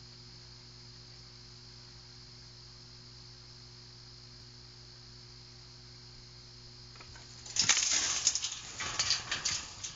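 A faint steady hum, then about seven and a half seconds in a loud burst of metallic clanks and rattling lasting a few seconds: the steel dog trap's door shutting and the cage rattling with the dog caught inside.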